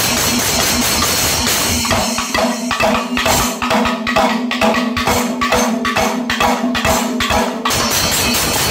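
Panchavadyam temple ensemble playing: timila and maddalam drums with ilathalam cymbals. About two seconds in the deep drum sound drops away, leaving sharp regular strokes at about two to three a second, and the full dense ensemble comes back in near the end.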